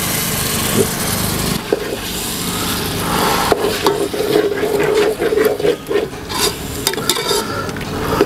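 A steel ladle stirring and scraping through thick tomato masala and freshly added yogurt in an aluminium pot, with the masala sizzling. The scraping strokes come thick and fast from about halfway in.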